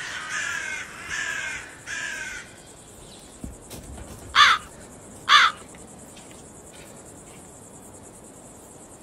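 A crow cawing: a run of harsh caws in the first two and a half seconds, then two louder caws about a second apart in the middle. A steady high-pitched insect buzz runs underneath.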